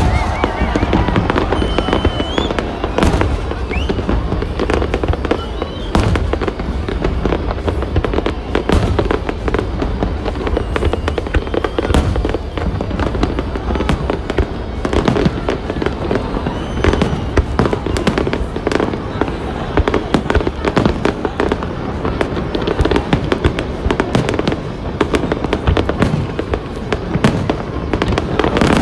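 Large aerial fireworks display: a dense, unbroken barrage of bangs and crackling as many shells burst overhead.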